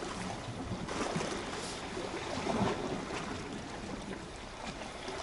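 Wind on the microphone and small waves washing against the shore rocks: a steady wash of noise with faint irregular splashes.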